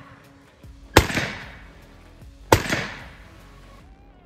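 Two shots from a 450 Bushmaster AR-15 rifle about a second and a half apart, each a sharp report followed by an echo that dies away over about a second.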